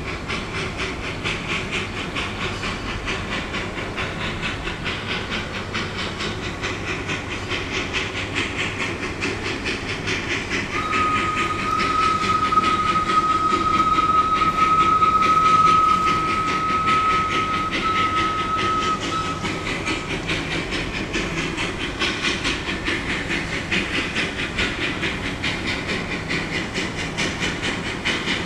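Narrow-gauge sugar-mill steam locomotive working slowly, with rapid even chuffing and steam hissing from its open cylinder cocks. Its whistle blows one long steady note starting about eleven seconds in and lasting some nine seconds.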